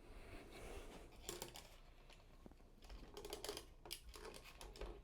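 Faint scattered clicks and short scrapes of a model train engine being handled and set on O gauge track.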